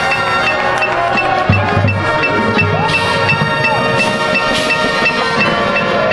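High school marching band playing, with sustained pitched notes and a steady run of short struck percussion notes.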